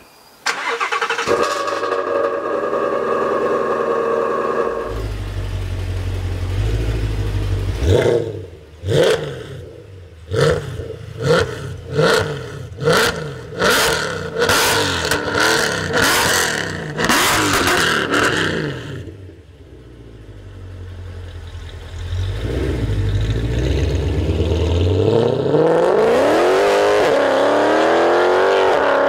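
Mercedes-AMG C63 coupe's 6.2-litre V8 exhaust, first idling, then blipped about ten times in quick sharp revs roughly a second apart while stationary. It then pulls away and accelerates hard, its pitch rising steadily near the end.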